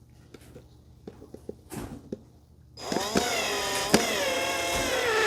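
A few light clicks of handling, then about three seconds in a power drill starts driving a screw into the shelf, its motor whine sagging and recovering in pitch as it loads up.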